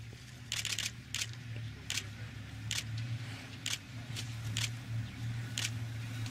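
Camera shutters firing in short bursts, one a rapid run of clicks, over a steady low hum.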